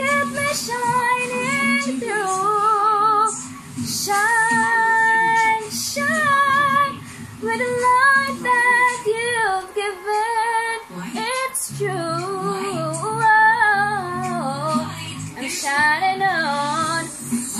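A woman singing a song out loud along with recorded music, holding long wavering notes over a bass line that comes in about two-thirds of the way through; she herself calls her singing out of tune.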